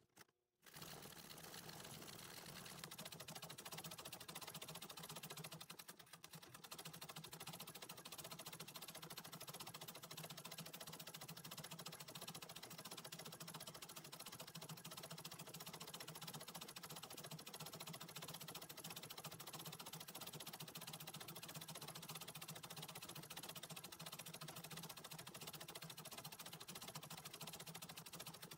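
Antique treadle sewing machine running steadily, its needle stitching rapidly in free-motion embroidery, a faint fast even clatter that drops out briefly right at the start.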